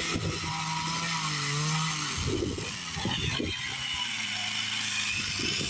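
Chainsaw running at high speed, then dropping to a lower pitch about two seconds in as it eases off.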